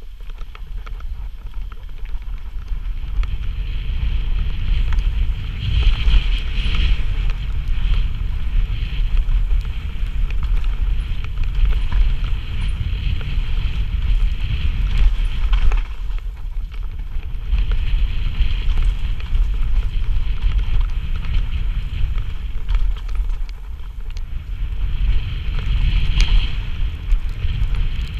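Wind buffeting the microphone over the rumble and rattle of a mountain bike descending fast on a dirt trail, tyres rolling over the ground and the bike clattering over bumps. It eases briefly twice, about halfway and near the end, then picks up again.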